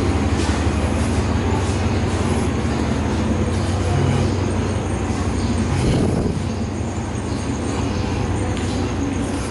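A standing passenger train's diesel engine idling, a steady low hum.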